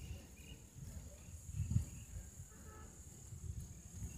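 Low, irregular wind rumble on the microphone, strongest about two seconds in, over a faint steady high-pitched whine.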